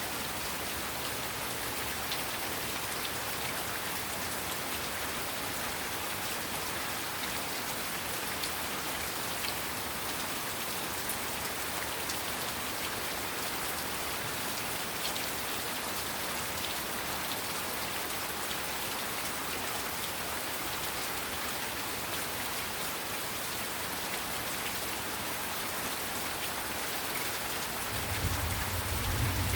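Heavy rain falling steadily in a dense, even patter. Near the end a low rumble of thunder starts to build.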